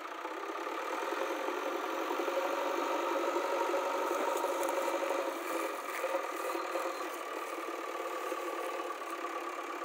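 JCB 3DX backhoe loader's diesel engine running steadily under load while the machine pushes earth with its front loader bucket.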